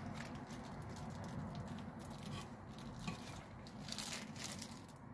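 Disposable plastic glove crinkling faintly and irregularly as a gloved hand presses and pats a slab of yaksik, the sweet glutinous rice cake, with a soft squish.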